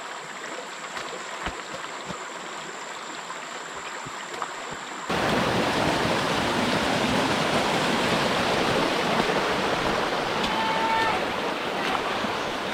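Waterfall: a steady rush of falling water. About five seconds in it abruptly becomes much louder and fuller, with more low rumble.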